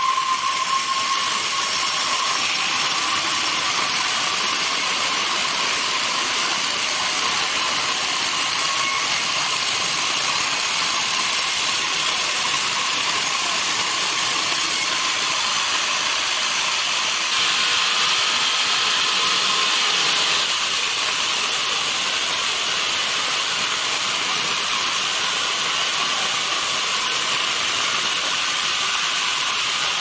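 Horizontal band sawmill running, a steady machine hiss with a thin whine through it. It gets slightly louder for a few seconds about two-thirds of the way through.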